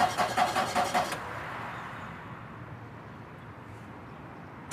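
Car's starter motor cranking the engine in a quick, even rhythm without it catching, the sign of a car that won't start. The cranking cuts off about a second in, leaving only a quieter steady background, and starts again at the very end.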